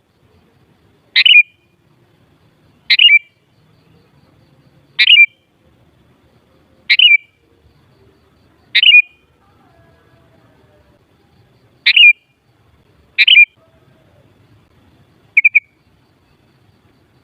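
Sooty-headed bulbul giving short, sharp calls, eight in all at about two-second intervals with one longer pause; the last is a weaker double note.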